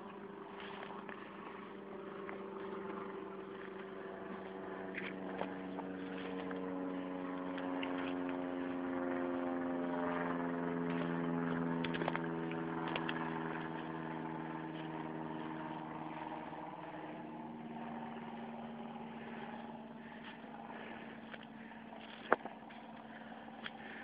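A distant engine passing by, its hum growing louder for about ten seconds and then fading, its pitch dropping as it passes. Light scattered crackles and ticks run through it.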